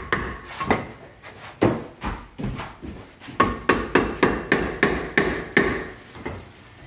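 Hammer tapping in a steady series of sharp knocks, about three a second, fading near the end, during masonry work on the fireplace base.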